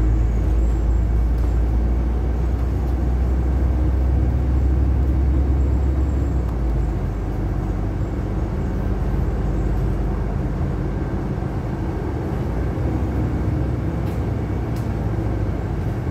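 Cabin noise inside a moving LiAZ-6213.65 articulated diesel bus: a steady engine drone mixed with road and tyre noise. The deep low rumble eases off about seven seconds in.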